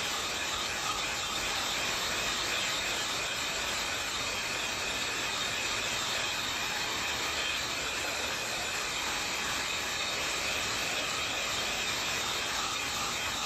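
Handheld electric dryer blowing air in a steady hiss with a faint whine, played over wet spray paint to dry it.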